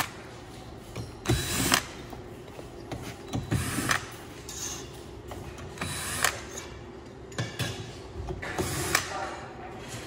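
DeWalt 20 V cordless drill-driver backing screws out of a sheet-metal plenum panel, running in several short bursts with pauses between them.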